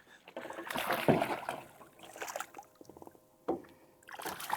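Water splashing and sloshing at the side of a small boat, uneven for the first two seconds, then a few sharp knocks.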